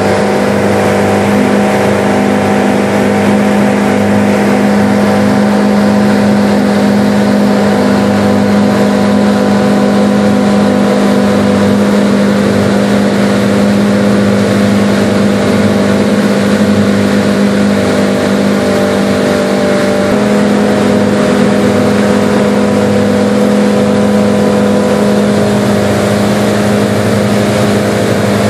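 Twin engines of a sport-fishing boat running steadily at cruising speed, over the rush of water and spray from the hull and wake. The engine note shifts slightly about twenty seconds in.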